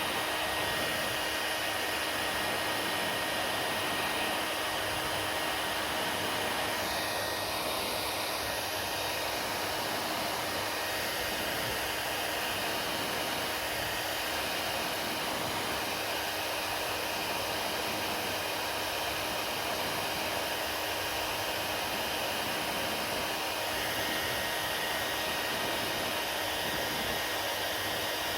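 Hair dryer running steadily: an even rush of blown air with a faint steady whine, its sound shifting slightly about seven seconds in.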